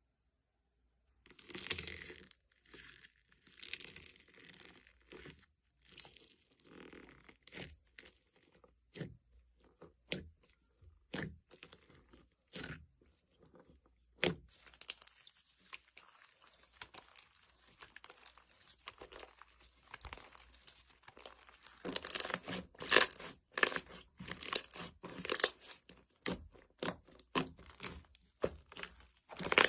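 Slime being squeezed and pressed by hand, making sharp crackling pops and clicks mixed with softer squishing. The crackles start after about a second and a half and come thicker and louder toward the end.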